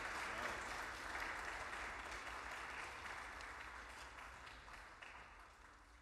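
Audience applauding, the clapping gradually fading away.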